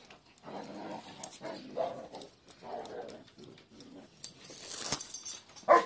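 Kangal shepherd dog giving a few short vocal sounds, with one louder, sharper cry near the end.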